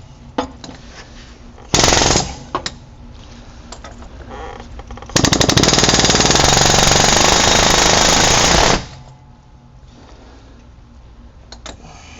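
Pneumatic air hammer hammering in rapid strokes: a short burst about two seconds in, then a longer burst of about three and a half seconds. It is being used to drive out the CV axle's inner cup, stuck by corrosion in the axle housing of a Ram 1500.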